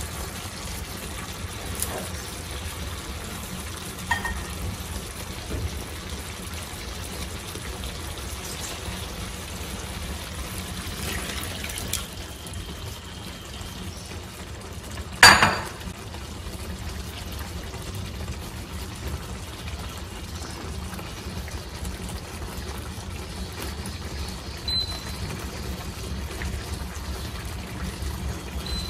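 Fish in tomato sauce simmering in a pan on an induction cooktop: a steady low bubbling over the cooktop's hum, with a few small clicks. A sharp knock about halfway through is the loudest sound, and a short high beep from the cooktop's touch controls comes near the end.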